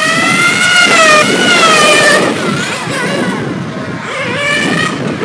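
Small engine of an engine-powered RC car running at high revs, its high-pitched whine rising and falling as the car accelerates down the straights and lifts off for the corners. Strong wind rumbles on the microphone underneath.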